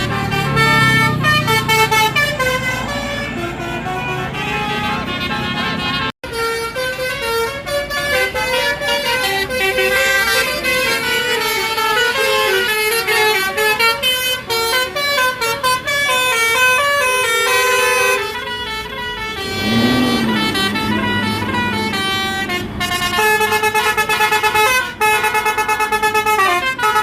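Basuri multi-tone telolet air horn on an Indonesian coach, playing a melody of stepped notes from its bank of horn trumpets. It breaks off for an instant about six seconds in, and a low sound rises and falls in pitch around two-thirds of the way through.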